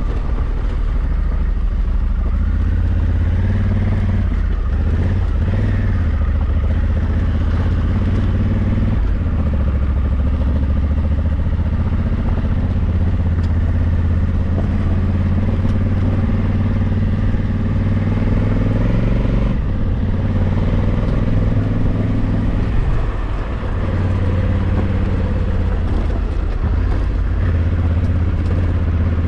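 Honda Africa Twin 1100's parallel-twin engine running under way as the motorcycle is ridden up a mountain road. Its pitch rises and falls with throttle and gear changes, with a brief drop in level about three-quarters of the way through.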